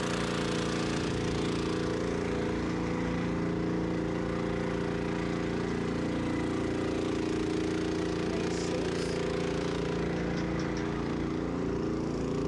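Engines and pump of a placer-mining wash plant running steadily: a constant, even machine drone.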